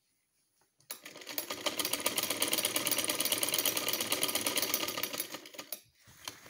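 Black straight-stitch sewing machine running a fast, even line of stitches through cotton fabric, starting about a second in and winding down near the end. It is sewing the seam that fixes a band collar to a kameez neckline.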